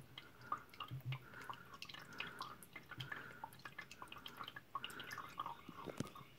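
Water being poured through a small funnel into the boiler of a Jensen Model 70 steam engine, faintly trickling and dripping in irregular little plinks as the boiler fills.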